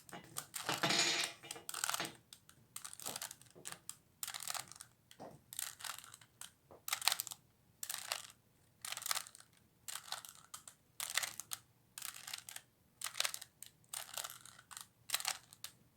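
Plastic 3x3x3 Rubik's Cube layers being twisted by hand through a move sequence: a quick, irregular series of short clacking turns, about one or two a second.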